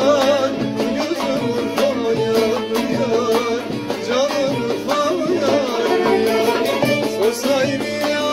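Bağlama (long-necked Turkish saz) played in an instrumental passage of a folk song: a steady run of plucked strokes carrying an ornamented, wavering melody.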